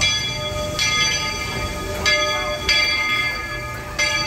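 A steam locomotive's bell ringing: about five uneven strokes, roughly one a second, each one ringing on into the next.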